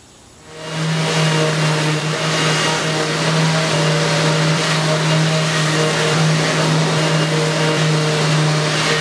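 Electric random orbital sander switching on about half a second in, then running steadily against a maple cabinet panel: a constant motor hum with a hiss from the pad on the wood.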